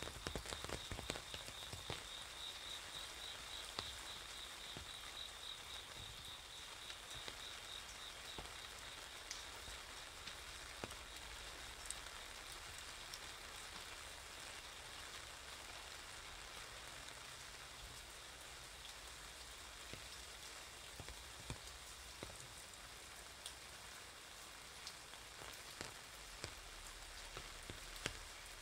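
Steady rain falling on wet paving, with scattered drops tapping sharply on an umbrella overhead. For the first eight seconds or so a high, fast-pulsing trill sounds over the rain, then fades out.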